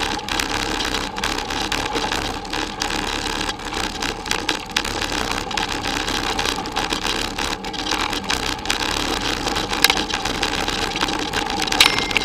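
Bicycle rolling over a bumpy dirt forest track: a steady rumble and rattle of tyres and the shaking bike-mounted camera, broken by many small knocks from the bumps, with a couple of sharper knocks near the end.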